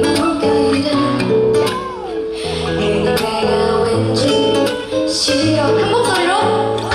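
Pop music with guitar and bass, with a little singing.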